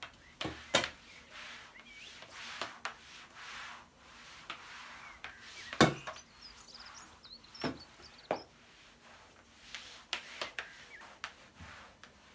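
Irregular light knocks and clacks of things being handled, about a dozen, the loudest one a little before halfway, between soft rustling. Small birds chirp faintly in the background.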